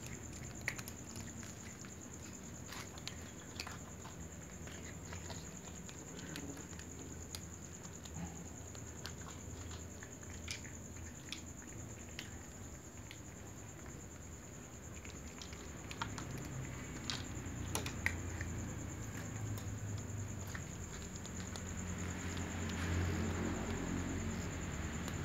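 Cats crunching dry kibble close up: a run of small, irregular crunches and clicks as they chew and pick pellets off a board.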